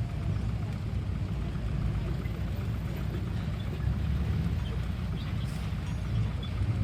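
Heavy machine's engine running steadily with a low rumble.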